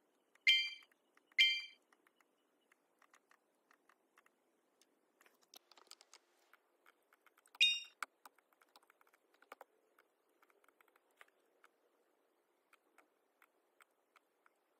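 Light, irregular clicks of a laptop keyboard and mouse during computer work. Three short, high ringing tones stand out, two close together near the start and one about halfway through, and they are the loudest sounds.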